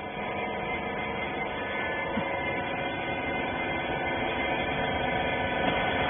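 Steady hum of a hydraulic baler's power unit, its electric motor and pump running, with several steady tones; it grows slightly louder toward the end.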